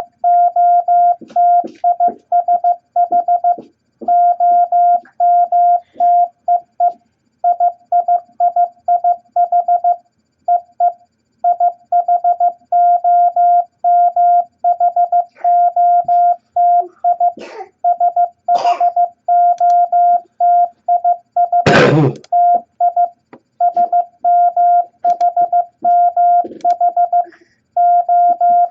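Morse code practice tone: a steady beep keyed on and off in dots and dashes at 15 words per minute, sending the beginner letters E, I, S, H, T, M and O. A few short clicks or knocks sound over it, the loudest about two thirds of the way through.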